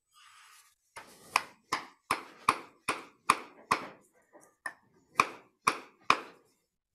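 Wooden mallet striking a cedar log blank on a lathe: about a dozen sharp, ringing knocks at a steady pace of roughly two and a half a second, a few of them lighter taps.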